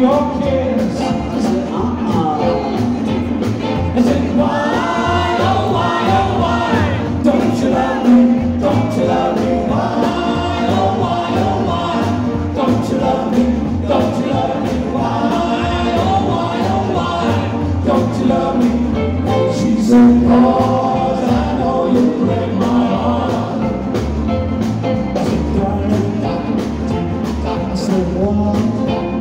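Male vocal group singing together in harmony at the microphones over a live band playing a steady beat.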